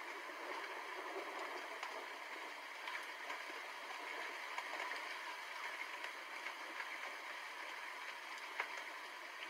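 Steady rainfall: an even hiss with scattered sharp drop ticks running through it, one sharper tick near the end.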